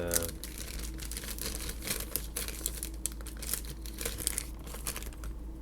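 Crinkling of packaging being handled around a box of door hinges: a dense, irregular crackling.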